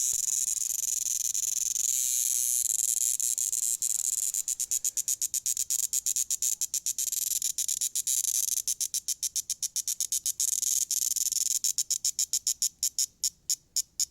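A cicada caught by a cat gives a loud, shrill buzz. About four seconds in, the steady buzz breaks into rapid pulses, and near the end these slow into separate chirps about three a second.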